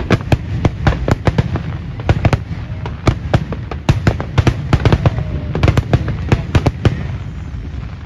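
Aerial firework shells bursting in a rapid barrage: many sharp bangs, several a second, over a continuous low rumble. The bangs thin out and stop about seven seconds in.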